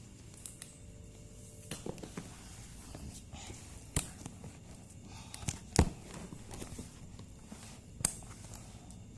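Cardboard packaging being handled and opened, with scattered sharp clicks and knocks, the loudest about six seconds in.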